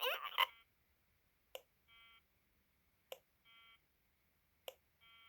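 A glitching 2001 re-release Furby's sound chip. A garbled burst of its voice cuts off about half a second in, then it falls into a repeating loop of a sharp click followed by a short buzzy beep, three times at about one and a half second intervals. These are audio glitches brought on by its power being cut and restored at the battery compartment.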